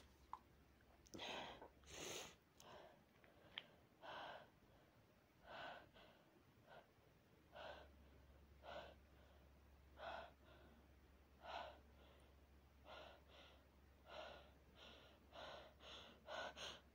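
Short, faint gasping breaths, about one every second or two and coming quicker near the end: the build-up to a sneeze.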